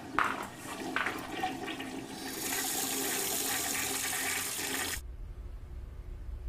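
Water rushing: a couple of clicks, then a rush that builds and holds steady before cutting off abruptly about five seconds in, leaving a low hum.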